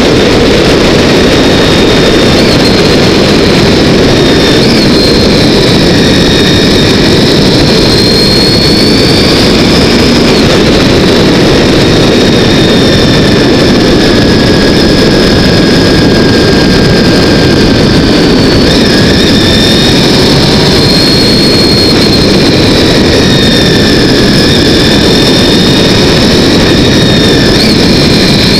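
Honda VFR 800's V4 engine running under way, heard from the bike's onboard camera and largely buried under a loud, steady rush of wind noise. A faint whine rises and falls slowly with road speed.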